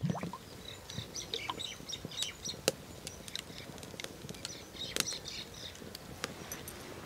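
Faint birds chirping and a hen clucking in the background, in two short spells, with scattered sharp clicks. No clear sound of the oil being poured.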